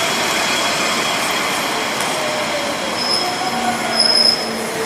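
City street traffic with a red double-decker bus driving past close by: a steady rush of engine and road noise, with a high squealing whine and a lower falling whine coming in during the second half.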